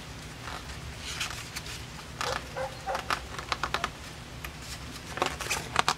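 Irregular short clicks and rustles of a hardcover picture book being handled, growing louder about five seconds in as a page is turned.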